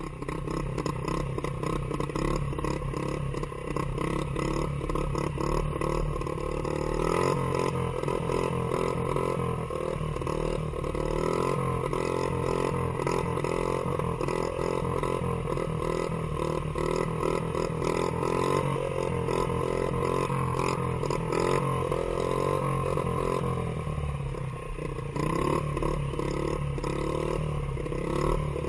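Dirt bike engine running steadily as the bike cruises along a road, heard from the rider's position on the bike.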